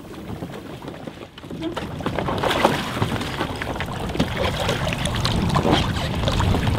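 Water splashing and sloshing around a sit-on-top kayak as a swimmer hauls himself out of the water and onto the deck. It grows louder about two seconds in, with many short splashes.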